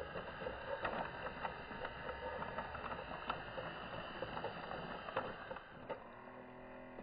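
Small electric motors and plastic gearbox of a toy remote-control excavator whirring as its upper body slews and its boom and bucket move, with irregular clicks throughout. A steadier whine sets in near the end.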